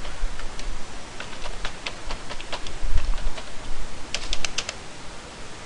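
Computer keyboard typing: irregular single key clicks, with a quick run of keystrokes a little past four seconds in. A low dull bump comes about three seconds in.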